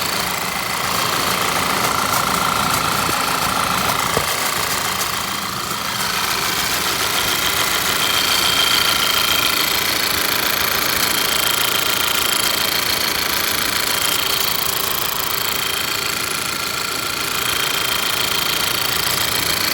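VW 2.0T turbocharged four-cylinder engine running steadily, with a few steady high whines that come and go above the engine noise and a single sharp tick about four seconds in; the owner cannot identify the noise.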